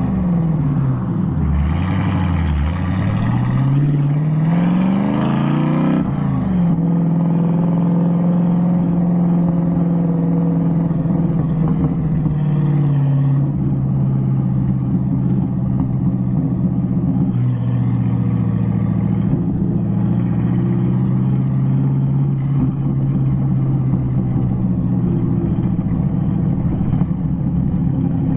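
TVR Chimaera 450's V8 engine and exhaust, heard from a mic outside at the number plate, on the move: the revs dip, then climb hard for a few seconds under acceleration, drop sharply at a gear change about six seconds in, and settle into a steady cruise that eases off slightly partway through.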